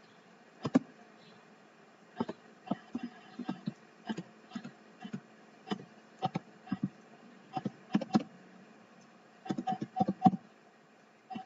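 Computer keyboard being typed on: separate, irregular keystrokes with short pauses between them, and a quick run of several keys about ten seconds in.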